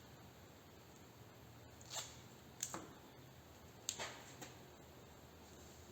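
A few brief, quiet rustles and clicks of duct tape being handled and pressed onto a sanding block, spread over several seconds.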